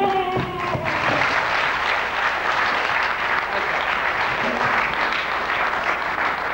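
Theatre audience applauding: steady clapping that swells in about a second in and carries on. A held note ends just as the clapping begins.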